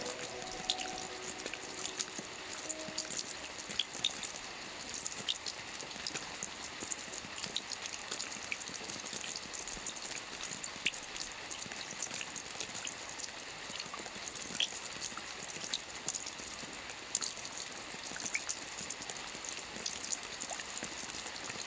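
Steady rain falling, an even hiss with many separate raindrops ticking sharply here and there.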